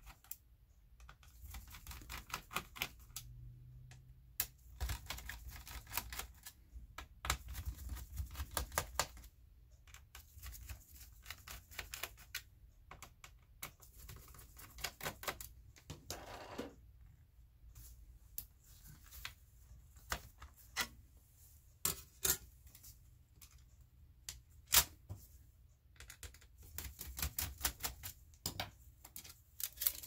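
Scattered sharp clicks and quick runs of ticking from a small screwdriver working the screws of an HP Folio 9480m laptop's plastic bottom cover, with a brief scrape a little past the middle. Near the end comes a dense burst of snapping clicks as the bottom cover is unclipped and lifted off.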